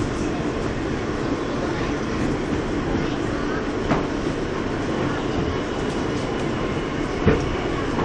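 New York City subway car under way: the steady noise of the train running on the rails, with a couple of short knocks about four and seven seconds in.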